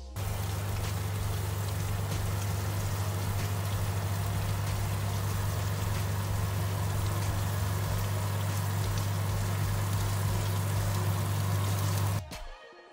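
Hot oven running with a steady low hum from its fan, and chicken wings sizzling and crackling on the baking tray; the sound cuts off about twelve seconds in.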